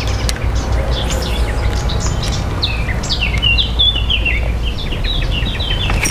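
Songbirds singing from the bankside trees: a fast run of short, high chirping notes, over a steady low rumble.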